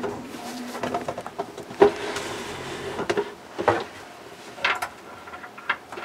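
Handling noise from a trading card and the camera being moved about close to the microphone: scattered clicks, knocks and rustles, the sharpest knock about two seconds in.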